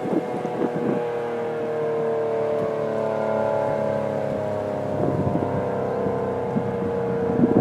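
ACA P-10 outdoor warning siren sounding a steady wail that sags slightly in pitch, its loudness slowly swelling and easing. Gusts of wind buffet the microphone now and then.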